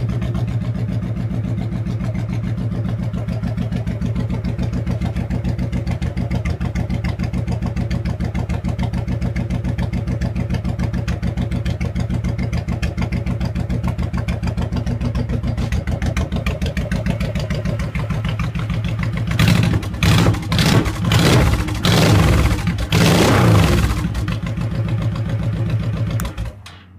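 Honda Shadow Sabre VT1100C2's 1100 cc V-twin idling with a steady, even beat while warming up after a cold start. About two-thirds of the way in, the throttle is blipped several times in quick succession, and near the end the engine is switched off and cuts out.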